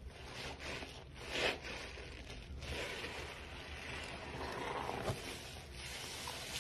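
Wet squelching and crackling of thick detergent lather as rubber-gloved hands squeeze and rub a soaked sponge, with a louder squelch about a second and a half in.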